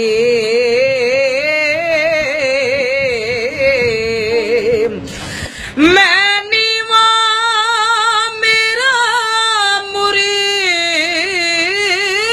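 A teenage boy singing a Sufi kalaam, drawing out long held notes with a heavy, wavering vibrato, with a brief break for breath about halfway through.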